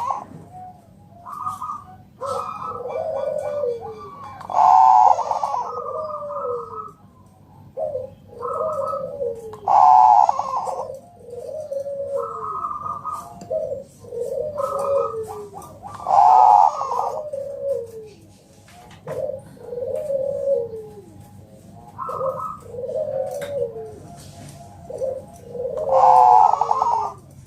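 Zebra dove of the Bangkok song line (perkutut Bangkok) cooing in repeated phrases: a loud high opening note about every five or six seconds, followed by runs of short falling coos.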